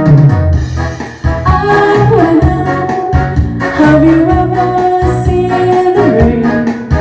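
Music: a sung pop-rock song with a voice holding long, gliding notes over a band with a steady beat.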